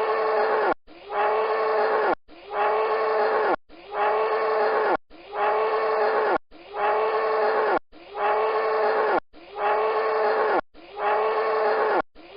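An animal's call, the same second-long call with a steady pitch, repeated about every one and a half seconds and cut off sharply each time: a short recording played on a loop.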